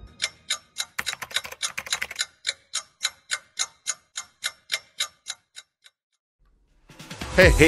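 Clock ticking as a sound effect, evenly at about four ticks a second, stopping about two seconds before the end; music comes in right at the close.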